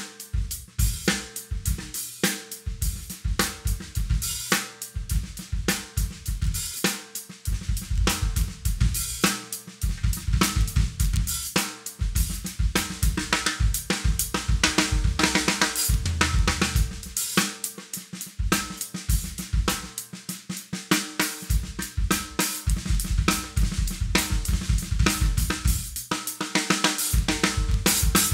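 Drum kit played with sticks: rapid strokes on a wooden snare drum together with hi-hat and cymbals. Kick drum beats run underneath and drop out briefly a few times.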